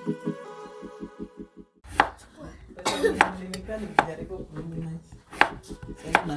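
A kitchen knife chopping food on a cutting board: a handful of sharp, irregularly spaced chops, after background music with a steady pulse in the first couple of seconds.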